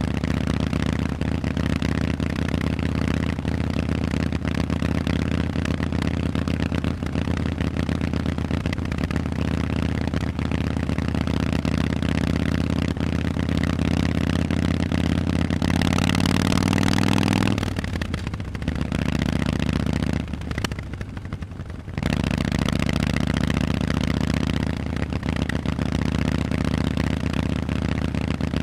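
Harley-Davidson Forty-Eight's V-twin engine through Vance & Hines exhausts, running steadily. About two-thirds of the way in it revs up briefly and then drops off sharply. It stays quieter and uneven for a few seconds before the steady sound picks back up.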